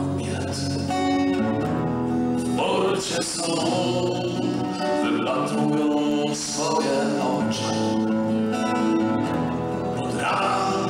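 A man singing to his own strummed acoustic guitar, holding long notes.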